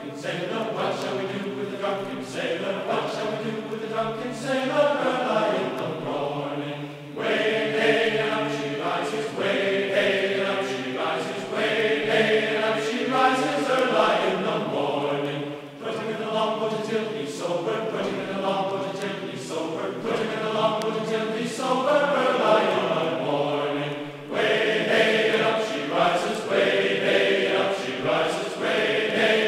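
Choral chanting as background music: several voices singing long held, slowly gliding notes, with short breaks between phrases.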